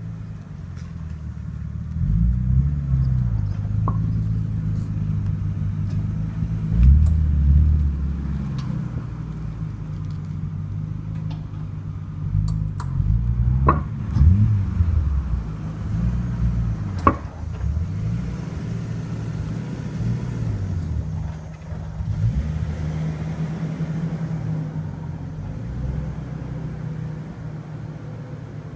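Car running, heard from inside, with a steady low engine and road rumble. A few sharp snapping cracks come through now and then, the loudest near the middle: the abnormal noise being checked.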